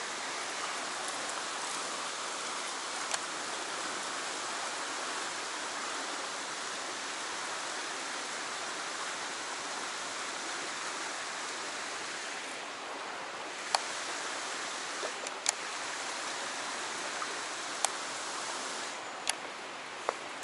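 River water flowing and splashing over a bedrock ledge, a steady rushing wash. A few sharp clicks stand out, mostly in the second half.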